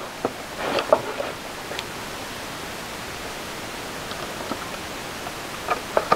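A steady hiss, with a few light clicks and rustles of small parts being handled as wire clips are hooked back onto a bird feeder's perches, about a second in and again near the end.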